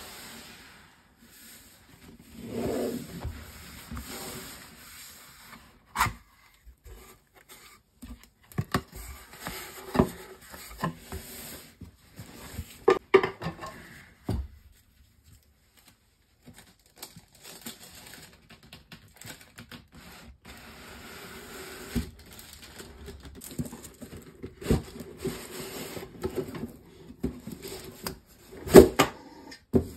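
A cardboard shipping box being opened by hand: flaps lifted and folded back, with cardboard scraping and rubbing, irregular sharp knocks and taps, and a rustle of tissue paper near the end.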